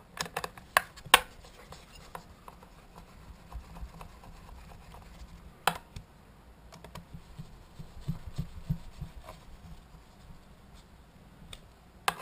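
Plastic chain brake cover of a Stihl 026 chainsaw being fitted and screwed down with a screwdriver. Several sharp clicks come in the first second and one more just under six seconds in, with soft scraping and ticking as the screwdriver turns.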